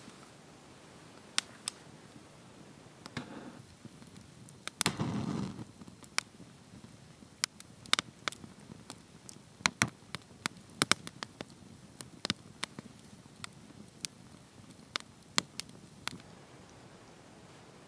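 Wood campfire crackling, with sharp irregular pops from the burning logs. A brief rush of noise comes about five seconds in.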